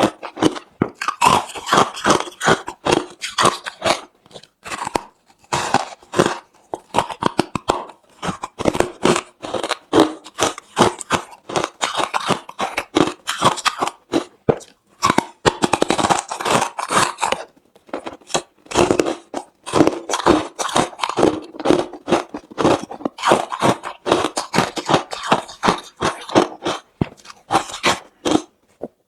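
Close-miked chewing of hard refrozen crushed ice: rapid, dense crunching as the ice shatters between the teeth, with a short lull about two-thirds of the way through.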